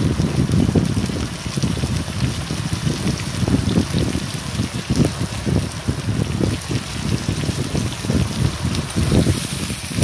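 Potato, brinjal and green chilli pieces sizzling in hot oil in a kadai, a steady crackling hiss over an uneven low rumble.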